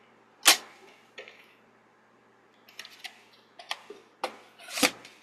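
A plastic VHS cassette being handled: a sharp plastic clack about half a second in, a few lighter clicks and taps, and another sharp clack near the end.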